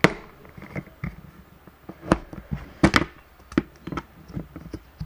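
Irregular light clicks and taps, some louder knocks among them, from handling an opened iPhone and small repair tools on a hard work surface.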